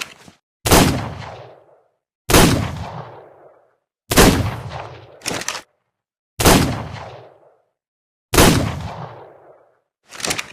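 Revolver gunshot sound effect: five shots about two seconds apart, each with a fading echo tail, and short sharp mechanical clicks near the start, in the middle and near the end.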